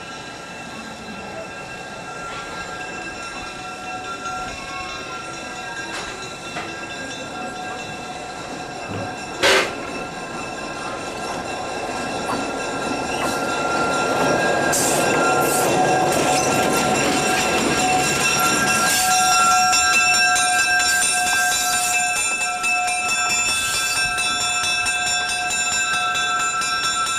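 EMD GP7 diesel locomotive's two-stroke engine passing close by on the next track, heard from a moving train. Its sound swells about halfway through and stays loud as it goes by. Steady high ringing tones run underneath, and there is one sharp click a little before the middle.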